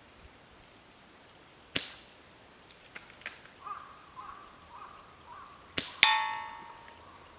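Tokyo Marui VSR-10 G-Spec spring airsoft rifle firing with a sharp snap, a few light bolt clicks between shots, then a second shot followed at once by the loudest sound: a ringing metallic clang that dies away over about a second as the BB strikes metal.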